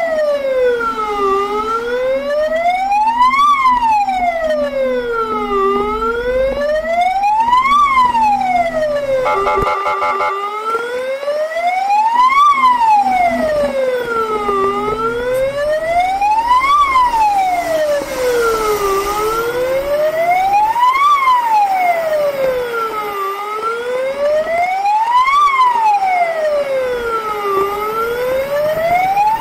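Fire truck's electronic siren sounding a slow wail, rising and falling about every four and a half seconds, with a brief burst of rapid pulsing about nine seconds in.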